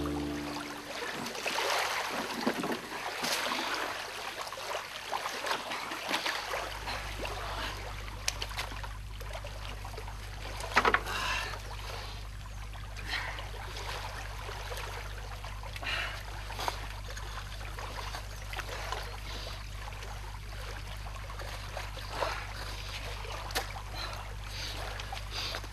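River water lapping at the shore, with rustling and scuffing of someone scrambling up a dirt bank through dry grass and clawing at the earth. A low steady hum comes in about six seconds in.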